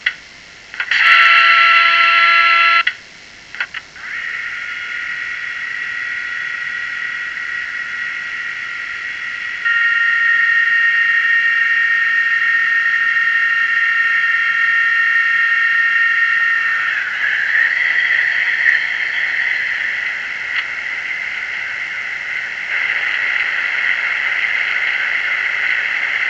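DCC sound decoder in a model Class 73 locomotive playing its diesel engine sound through the loco's small speaker: a loud, many-toned blast for about two seconds near the start, then the engine running steadily, stepping louder near ten seconds in and turning rougher from about seventeen seconds.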